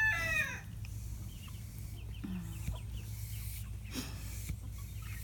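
The end of a rooster's crow, its last note falling away in the first half second, followed by chickens clucking softly.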